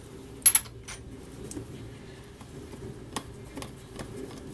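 Small metal parts and tools clinking against a cast engine side cover as they are handled: one sharp clink about half a second in, then a few lighter ticks.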